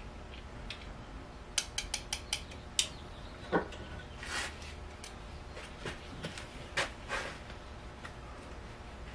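A quick run of sharp metallic clicks, then a louder knock and scattered clinks and rustles of metal tools and parts being handled.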